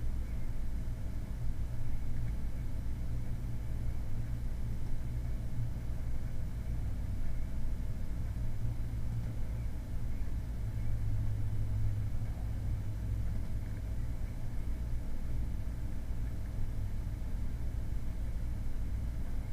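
Steady low-pitched background rumble with no distinct events.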